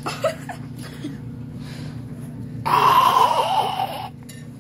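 A person's breathy laugh lasting about a second and a half, starting a little past the middle, over a steady low hum.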